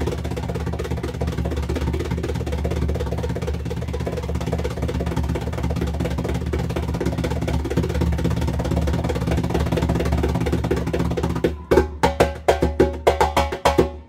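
Timbal played by hand: a fast, continuous roll of dense strokes with a steady low ring. About three-quarters of the way through it breaks into quick, separate sharp slaps and open tones.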